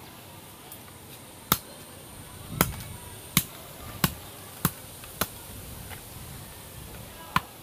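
Bolo knife chopping at the end of a thin cane pole held against a stone, trimming it into a fishing rod: about seven sharp knocks, irregularly spaced roughly half a second to a second apart, with a longer pause before the last.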